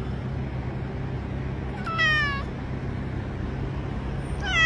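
Domestic cat meowing twice, short high-pitched meows that fall in pitch, about two seconds apart, the second near the end. A steady low hum runs underneath.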